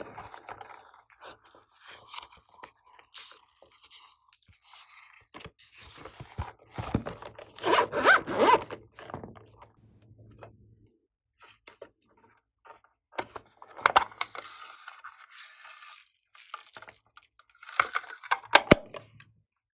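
Slime being worked by hand, squished, pressed and mixed, giving sticky crackles and sharp clicking pops in irregular bursts, with quieter pauses between.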